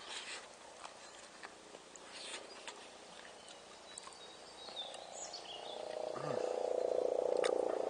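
A man eating from a wooden spoon: a few light clicks of the spoon and chewing, then a long drawn-out hum through closed lips that swells louder over the last few seconds.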